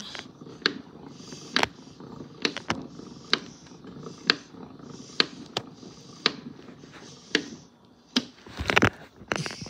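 Hand crank of a wind-up gramophone being turned to wind its spring motor: a steady ratcheting whirr with a sharper click about once a second, and a louder clatter near the end.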